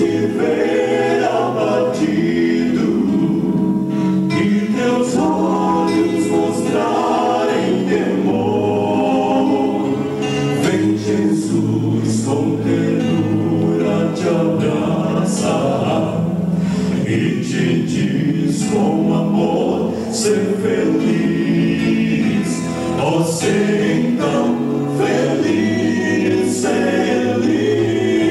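Male vocal quartet singing a gospel song in harmony into handheld microphones, several voices held together in sustained chords.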